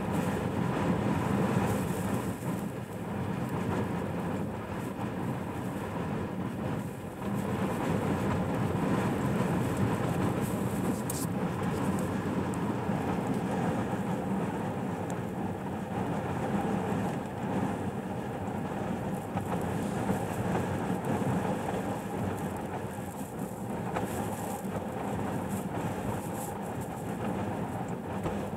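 Strong wind buffeting a truck, heard from inside the cab: a steady low rumble that swells and eases slowly.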